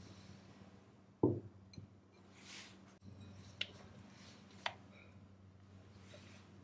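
Ceramic plate with a steel cake ring set down on a wooden cutting board with one dull thump about a second in. Two light clicks of kitchenware being handled follow, over a faint steady hum.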